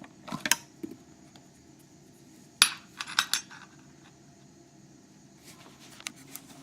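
Small metal lock parts and tools clicking and clinking as they are handled and set down. The sharpest click comes a few seconds in, followed by a quick cluster of lighter ones.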